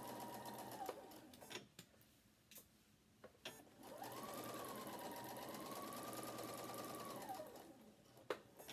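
Domestic sewing machine stitching in two runs. It runs steadily and winds down to a stop about a second in. After a pause with a few light clicks, it speeds up again about four seconds in, runs for some three seconds and slows to a stop. The owner calls the machine cranky and due for a cleaning.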